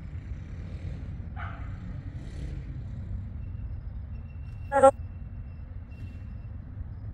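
Spirit box radio scanner sweeping, letting through a brief snatch of voice about a second and a half in and a louder, very short voice fragment near the five-second mark, which the investigator hears as the word "perdão". A steady low rumble of road traffic runs underneath.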